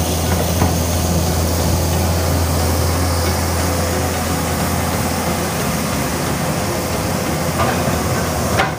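Komatsu PC200 excavator's six-cylinder diesel engine running steadily with a strong low hum as the machine works, with a few short knocks near the end.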